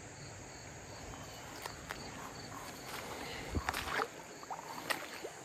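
Insects chirping in a steady, pulsing drone, with a few sharp clicks and knocks scattered through it, most of them between about three and a half and five seconds in.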